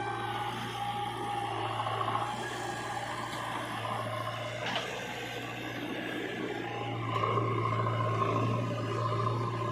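Diesel engines of heavy machinery running steadily with a low hum and a wavering whine, growing louder about seven seconds in, with a single short knock near the middle.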